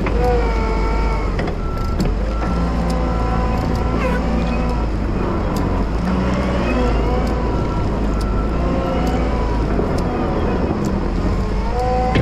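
Wheel loader's diesel engine running steadily, with indistinct voice-like sounds over it.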